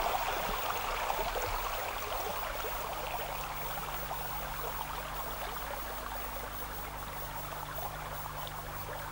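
Shallow stream water running and trickling steadily, easing off slightly in level. A faint steady low hum sits underneath.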